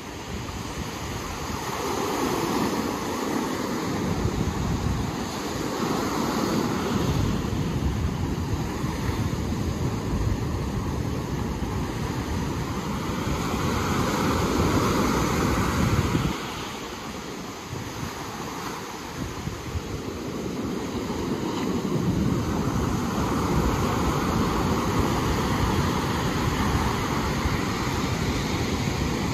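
Ocean surf washing ashore in slow swells, with wind rumbling on the microphone. The wind rumble eases for a few seconds a little past the middle.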